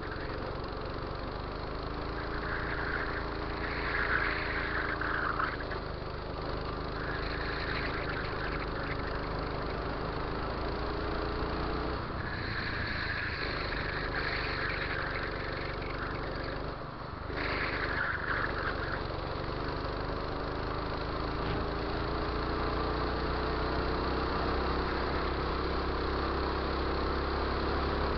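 Go-kart engine running hard, heard from on board, its pitch rising and falling as it speeds up and slows for the corners. There is a brief drop about two-thirds of the way through.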